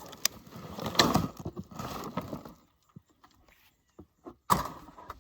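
A pot of potting soil with potatoes being tipped out: soil sliding and rustling with knocks through the first two and a half seconds, a few scattered clicks, then a second short loud rush of soil about four and a half seconds in.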